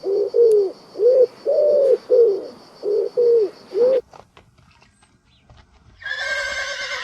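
Pigeon cooing in a quick run of short hooting notes for about four seconds, then, after a brief pause, a horse whinnying near the end.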